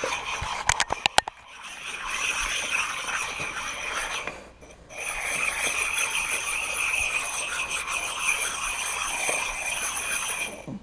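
A 2004 Subaru WRX brake pad being rubbed face-down in circles on a concrete floor: a steady, gritty scraping with a high, squeal-like edge as the concrete sands the glazed layer of built-up brake dust off the friction surface. A few sharp clicks come about a second in, and the scraping stops briefly twice, about a second and a half in and around four and a half seconds in.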